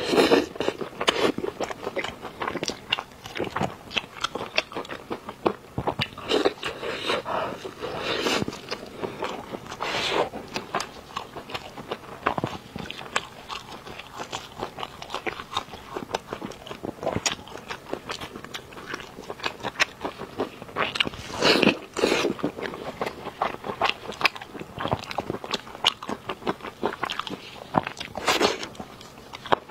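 Close-miked eating sounds: wet chewing and biting of braised meat on the bone, with many sharp, irregular mouth clicks and smacks. The loudest come about ten seconds in, twice around twenty-two seconds, and near the end.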